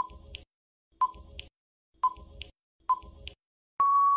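Quiz countdown timer sound effect: a short beep with a tick about once a second, four times, then a long steady beep near the end signalling that time is up.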